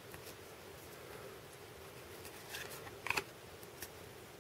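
Faint rustle and flick of stiff cardboard baseball cards being slid one by one through the hands, with a short card snap about three seconds in and a softer one just before it.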